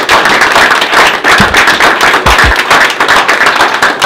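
A group of people applauding, dense rapid hand claps, over background music with a few low drum thuds.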